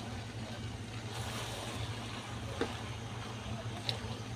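Steady low rumble and hiss, with two light clicks in the second half.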